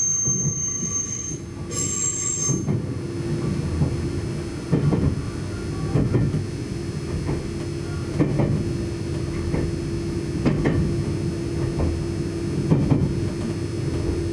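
Nagano Electric Railway limited express train running: a high wheel squeal for the first couple of seconds, then the rhythmic clickety-clack of wheels over rail joints, the knocks often coming in quick pairs, over a steady running rumble and hum.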